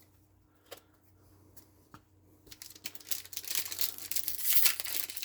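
Plastic booster pack wrapper being torn open and crinkling, starting about three seconds in and getting louder, after a couple of small clicks.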